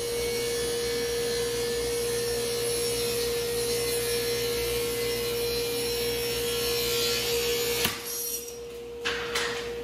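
Table saw running and ripping a thin strip of wood along the fence, with a steady motor hum under the cutting noise. About eight seconds in comes a sharp crack as the thin strip, with no zero-clearance insert beneath it, drops into the throat-plate opening, jams against the blade and kicks back. The saw runs on after that, with a couple of knocks.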